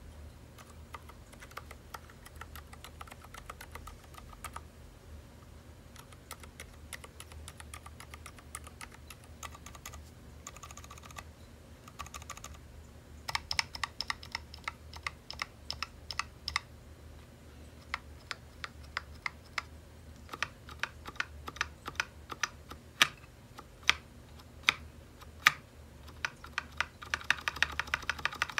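Typing on a custom HHKB-layout mechanical keyboard fitted with ZealPC Zilent V2 silent tactile switches: quick runs of damped keystrokes. Later there are scattered single, louder key strikes, and a fast flurry of typing near the end.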